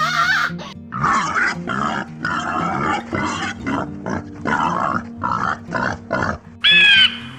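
A pig grunting in a rapid series of about a dozen short, rough calls over background music. Near the end a crow caws once.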